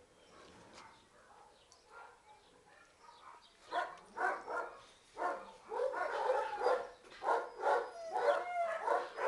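Dog barking repeatedly from about four seconds in, with whining calls that rise and fall among the barks; only faint sounds before that.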